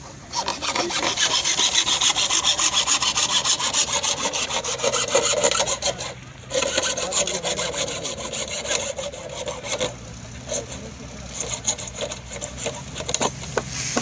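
Hacksaw cutting through a dark plastic drainage pipe with rapid back-and-forth strokes. The sawing pauses briefly about six seconds in, then thins to lighter strokes after about ten seconds as the cut is finished.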